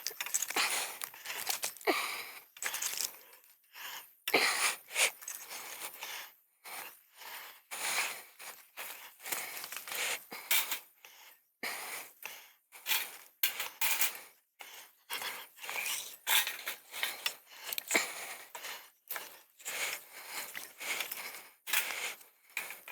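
A man's heavy panting breaths close to the microphone, about two breaths a second, from the exertion of climbing and strapping up a tree stand. Scrapes and small metal clinks of strap and stand hardware come in between.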